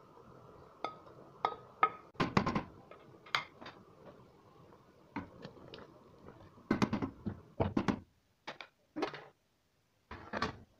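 Kitchen clatter at a stainless-steel pressure cooker: a spoon knocking chopped herbs off a plate into the pot and stirring, with a dozen or so irregular sharp knocks and clinks. Near the end, a metallic clunk as the pressure cooker's lid is set on the pot.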